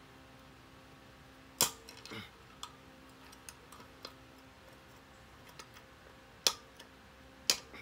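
Hammer blows on a punch set against the hub of a steel brake drum: a sharp metal strike about one and a half seconds in and two more near the end, about a second apart, with lighter taps between.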